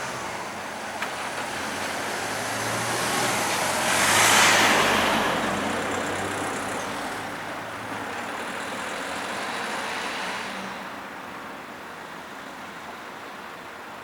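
A vehicle passing close by: its noise swells to a peak about four seconds in, stays up at a lower level until about ten seconds, then fades back to the background.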